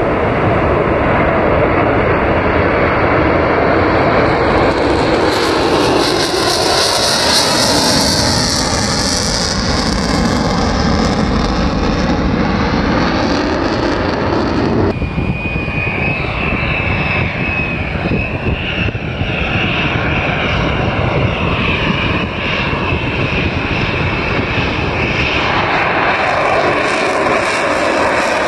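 Fighter jet's engine at high power during a fast pass: loud, continuous jet noise whose tone sweeps and shifts as the aircraft goes by. A thin high whine comes in about halfway through.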